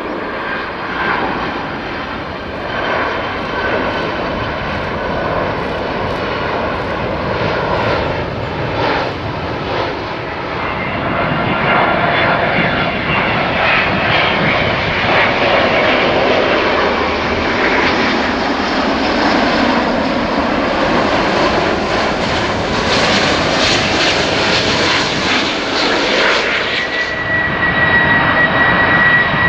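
Jet airliners on final approach, their engines giving a steady rushing roar that grows a little louder through the middle. First a Boeing 767-300F, then an Airbus A350-900, and near the end a Boeing 747-400 freighter, whose sound starts suddenly with a steady high whine.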